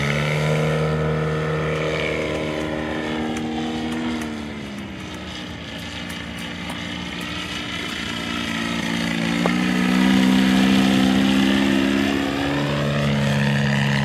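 Engine of a 40% scale Fokker Eindecker model plane, a Valach VM120B2 turning a Fiala 30x12 propeller, running in flight. Its note drops in pitch and fades about four seconds in, grows louder and higher again near ten seconds, then falls in pitch near the end as the plane passes.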